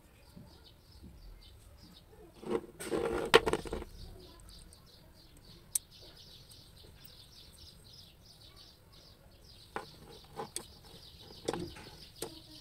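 Small birds chirping steadily in the background, with a loud burst of handling noise about three seconds in and a few sharp clicks later on, as coax F-connectors are screwed onto a metal two-way TV splitter.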